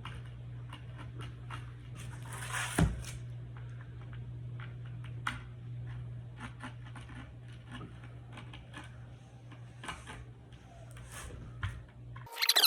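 Razor blade cutting a circle into skateboard grip tape: scattered short scratches and clicks, with a louder scrape about three seconds in. A steady low hum runs underneath and cuts off just before the end.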